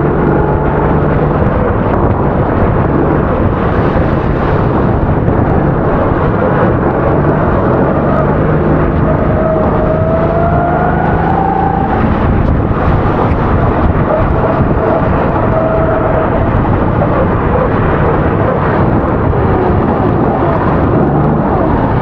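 270cc kart engine running hard, its note rising and falling as the kart accelerates and lifts off, over a steady hiss.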